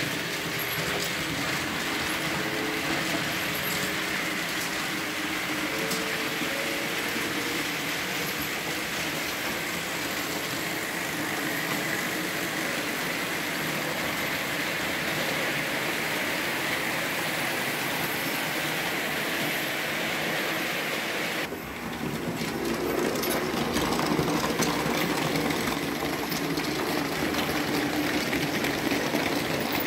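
Märklin model trains running on the layout: a steady whir and rattle of small motors and wheels over track and points. About two-thirds of the way in the sound changes abruptly and becomes a little louder and lower.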